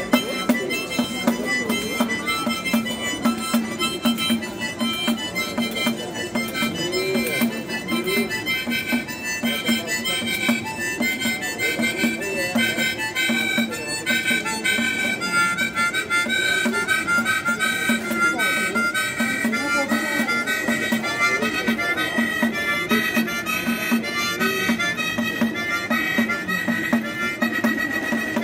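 A harmonica playing a melody together with a pandeiro, the Brazilian frame tambourine, shaken and struck in a steady jingling rhythm, both played by one street musician.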